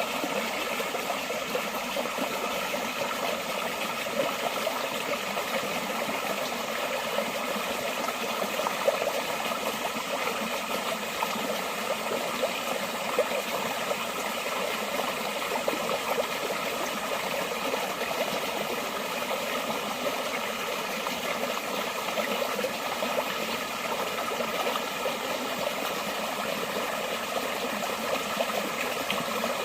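Forest stream water flowing steadily, a continuous babbling rush with small quick splashes.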